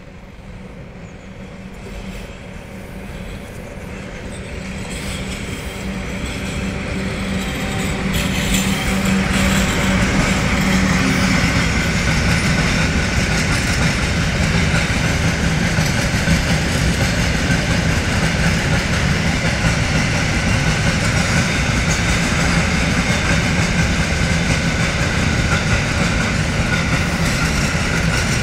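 A train approaching, growing steadily louder for about nine seconds, then running past close by with a loud, steady rush of wheels on rail.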